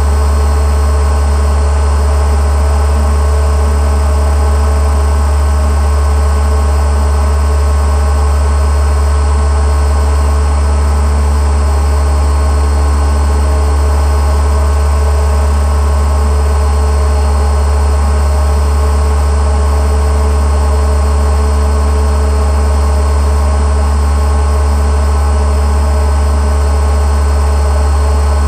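Boat engine running steadily at a constant speed, a loud unchanging drone.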